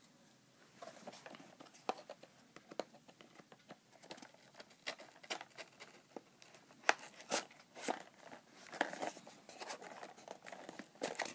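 A cardboard toy box with a plastic window being handled and opened by hand: irregular crinkling, scraping and small taps that start about a second in and grow busier in the second half.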